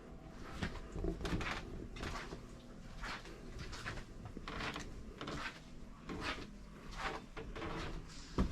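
Irregular clattering and knocking, one or two a second, over a low steady hum of indoor ambience.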